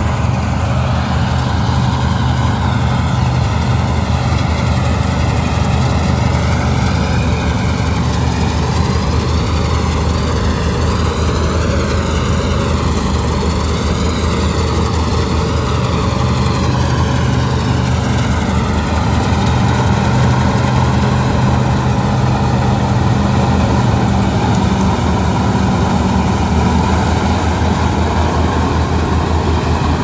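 Massey Ferguson 241 tractor's diesel engine running steadily, with a higher machine whine above it that slowly wavers in pitch.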